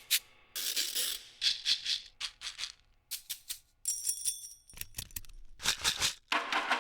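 Sampled drum-machine percussion from a hip-hop drum library, auditioned hit by hit: a run of short shaker and rattle strokes, a brief metallic ring about four seconds in, and a few deep kick-drum thumps around five seconds in.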